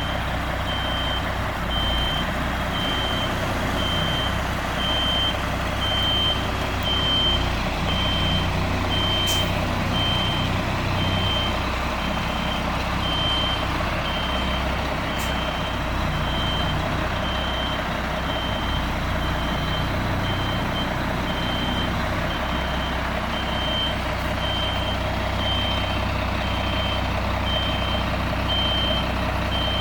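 A truck's back-up alarm beeping steadily, about once a second, over the low rumble of its running engine, most likely a concrete mixer truck reversing to pour. Two brief sharp clicks come about a third and halfway through.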